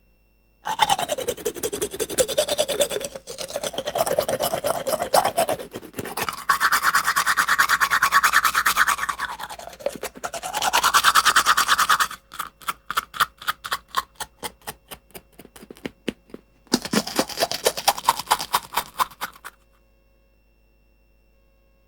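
A toothbrush scrubbing teeth in rapid back-and-forth strokes, the pitch of the scrubbing sweeping up and down as the brush moves around the mouth. About halfway through the strokes slow to separate strokes, then a last quick burst of scrubbing stops suddenly.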